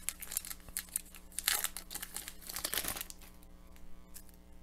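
Foil wrapper of a 2013-14 Upper Deck hockey card pack crinkling and tearing as the pack is opened, in several bursts over the first three seconds.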